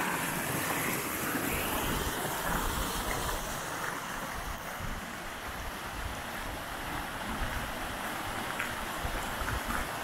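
Shallow mountain stream rushing over rocks, a steady rush of water, with faint crunching footsteps on gravel.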